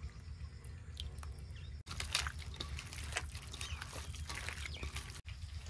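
Raw chicken cubes being mixed with a yogurt and spice marinade: soft, irregular wet sounds over a low steady hum, broken by two abrupt cuts.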